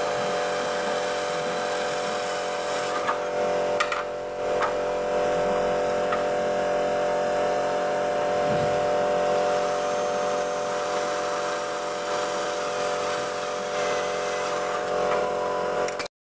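Cordless drill running with a steady whine as it bores holes through a brass flush bolt into an aluminium door-frame profile, with a few sharp clicks about three to four seconds in. The sound stops abruptly just before the end.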